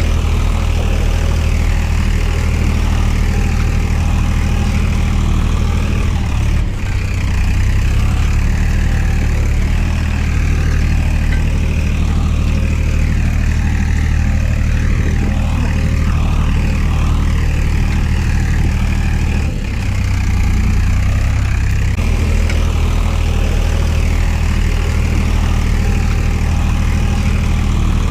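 A motor running steadily with a loud low hum, its note shifting slightly about seven seconds in and again around twenty seconds.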